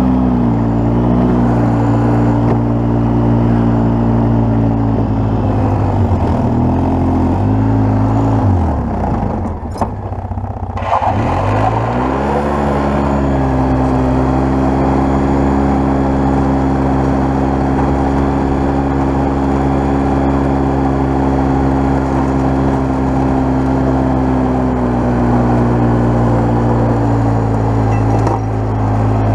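A 2002 Polaris Sportsman 700 ATV engine running steadily under load while plowing snow. About eight seconds in the revs fall away to a brief lull, and there is a single click. The engine then climbs back up and holds, easing off again near the end.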